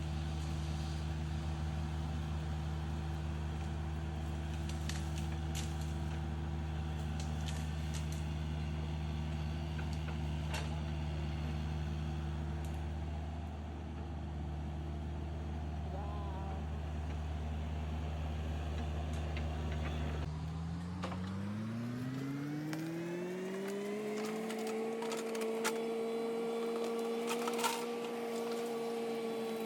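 Excavator's diesel engine running steadily at low speed, then revving up about two-thirds of the way through and holding at the higher speed. Scattered sharp cracks and clicks are heard over it.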